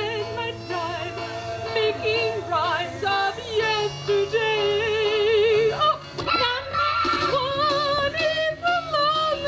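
A recorded song for the puppet show: a high, warbling vocal line with heavy vibrato over steady backing music. The music shifts to a new phrase about six seconds in.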